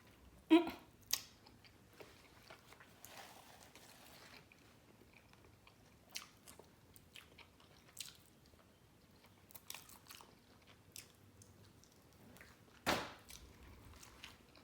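A person chewing and biting food close to the microphone. Short scattered mouth and crunch sounds, with a louder one about half a second in and another near the end.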